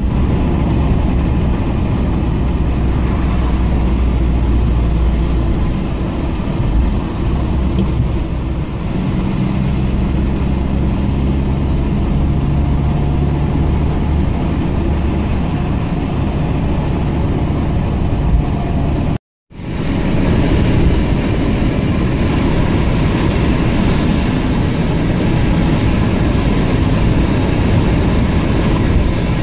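Road and engine noise heard inside a moving car: a steady low drone with tyre rumble. The sound drops out for a moment about two-thirds of the way through.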